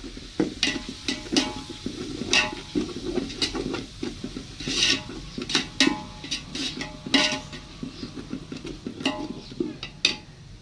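Metal perforated skimmer ladle stirring and scraping a thick masala in a large metal pot, with irregular clinks and scrapes against the pot. Some of the clinks leave the pot ringing briefly.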